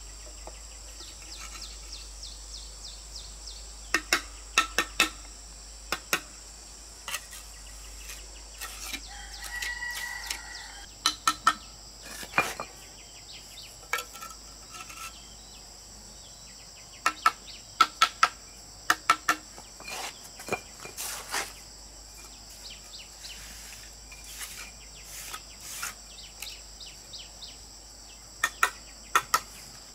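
Sharp knocks of bricks and stones being set and tapped, in quick clusters of two to four, over a steady high drone of insects. A rooster crows briefly about ten seconds in.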